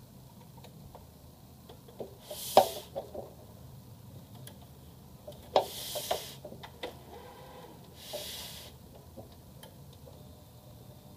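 Hard plastic printer casing being handled, with two clusters of sharp clicks and knocks and three short scraping noises.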